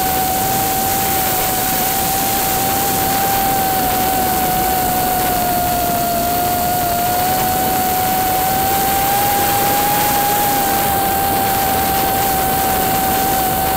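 FPV drone's motors and propellers whining steadily in flight. The pitch drifts slightly up and down with throttle, over a constant hiss of wind and noise.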